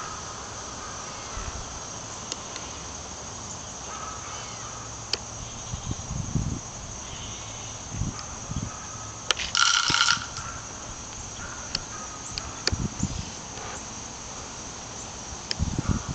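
Outdoor ambience: a steady high-pitched insect drone with occasional low rumbles of wind on the microphone, and one short harsh squawk-like sound about ten seconds in.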